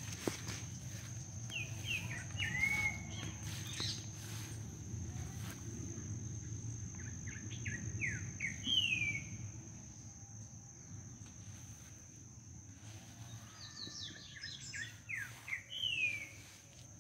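A songbird sings three phrases, each a run of quick falling notes ending in a long downward slur, over a steady high insect whine. A low rumble and faint knocks run underneath.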